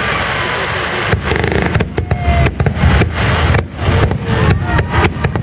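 Aerial fireworks display: shells bursting in quick succession, with many sharp bangs and crackles over a continuous low rumble.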